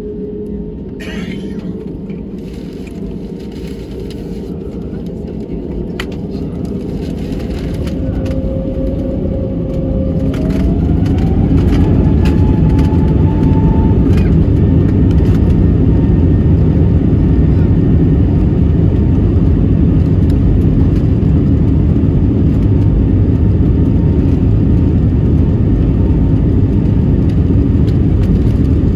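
An Airbus A320-family airliner's twin turbofan engines heard from inside the cabin, spooling up to takeoff thrust: about ten seconds in, a whine rises in pitch as the rumble grows much louder, then a loud, steady rumble holds through the takeoff roll.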